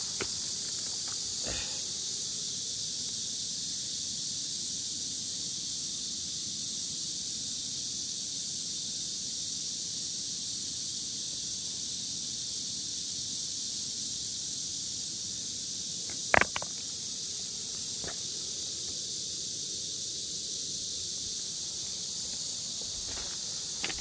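Outdoor riverbank ambience: a steady high-pitched hiss over a faint low rush, with a few sharp clicks, the loudest about sixteen seconds in.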